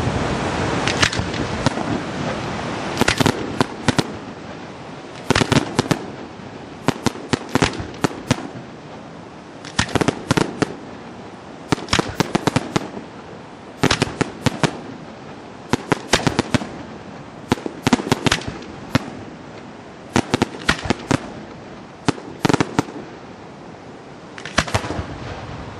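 Aerial fireworks display: clusters of sharp bangs and cracks about every two seconds. A rumbling haze from a bigger burst fades away over the first few seconds.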